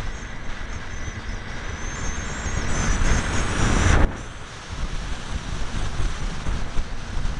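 Wind buffeting the on-board camera of a ParkZone T-28 Trojan electric foam RC plane, with the electric motor and propeller whine climbing in pitch and loudness, then cutting off suddenly about four seconds in, leaving a quieter rush of air.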